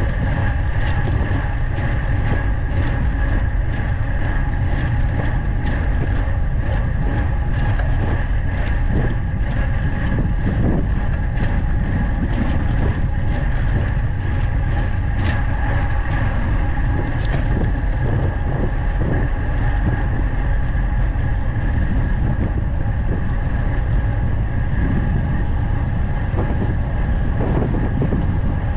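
Wind rushing over the microphone and tyre-on-road rumble from a road bike descending at speed. Small ticks and knocks come through from the road surface, over a faint steady whine.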